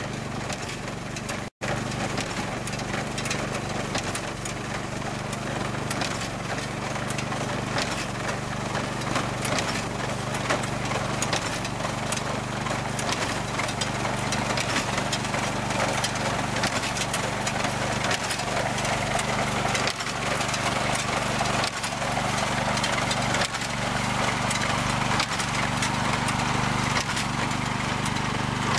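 Kubota RJN55 walk-behind reaper binder running steadily while it cuts and ties rice at its low reaping speed: a small engine hum under a busy mechanical rattle with frequent small knocks. The sound drops out for an instant near the start.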